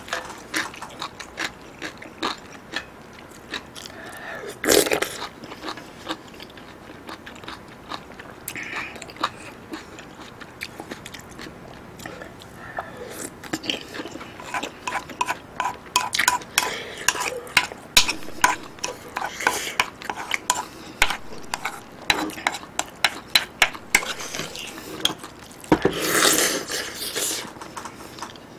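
Close-miked eating of a beef and mushroom hot pot: many quick wet clicks of chewing and slurping, with a metal ladle and chopsticks knocking against the pan. Two louder bursts stand out, about five seconds in and near the end.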